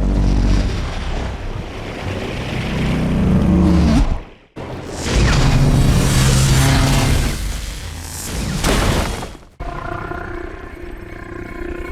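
Isolated sci-fi film sound effects played back to back: a deep, loud rumbling roar that swells and cuts off abruptly about four seconds in, a second loud, noisy roar that cuts off abruptly near the end, then a quieter sound with several steady tones.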